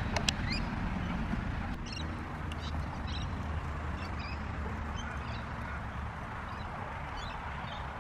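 Birds chirping on and off in short high calls over a low steady rumble.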